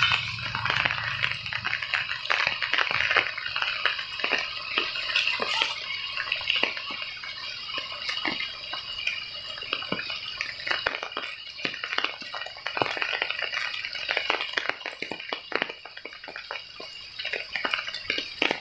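Rain falling on leaves and foliage: an irregular patter of many drops.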